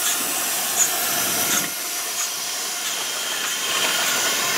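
Narrow-gauge steam locomotives hissing steam as they move slowly past, with a few light knocks; the sharpest comes a little under a second in.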